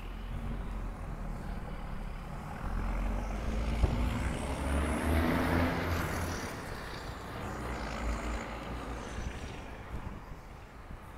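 A motor vehicle passing by on the street: engine rumble and road noise grow louder to a peak about halfway through, with a faint high whine rising and then falling, before fading away.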